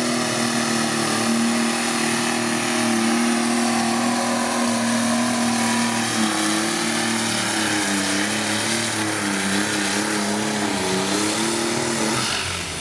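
A pulling vehicle's engine running hard at full throttle during a pull: a loud, steady drone that starts to waver up and down in pitch about halfway through, then falls away just before the end.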